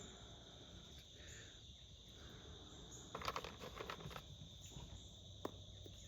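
Crickets chirring steadily in the background, with a short spell of rustling clicks about three seconds in and one sharp click about five and a half seconds in.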